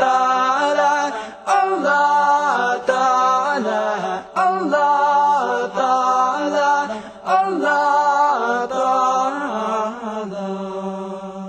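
Islamic nasheed sung a cappella: voices sing long, ornamented melodic runs over a steady held drone note. The song fades out near the end.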